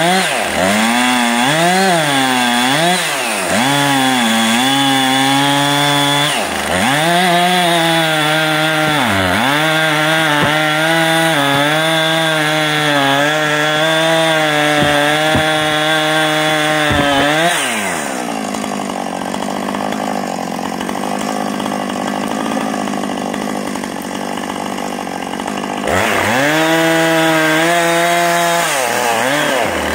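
Gas chainsaw bucking a felled hardwood log. It revs up and down several times, then holds at high revs through a cut for about ten seconds. About two-thirds of the way through it drops to a steady idle, and it revs up again near the end.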